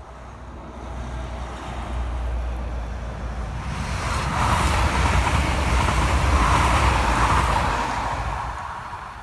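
NSB Class 73 electric multiple unit passing at speed: a rushing noise of wheels on rail and moving air, with a low rumble. It builds over the first few seconds, is loudest for about three seconds in the middle, and fades near the end.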